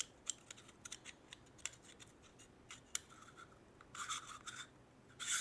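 Faint small clicks and scraping rubs from handling a small black telescope adapter and fitting it into a padded accessory case, with a few longer scrapes in the second half.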